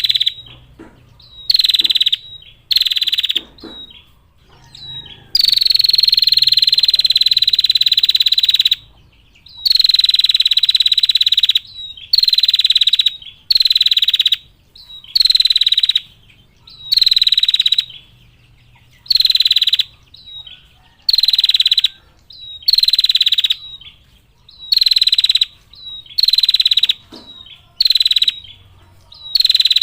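Female prinia (prenjak) giving its trilling 'ngetir' call, repeated about a dozen times as calls of about a second each, with one long trill of about three and a half seconds some five seconds in.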